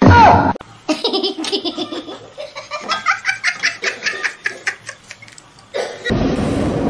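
A person laughing hard in a long run of quick, rhythmic bursts. A brief loud call with falling pitch comes at the very start, and a steady rushing noise begins near the end.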